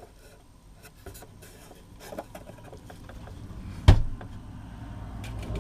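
Wooden box parts being handled: light clicks and rubbing of wood on wood, with one sharp knock about four seconds in.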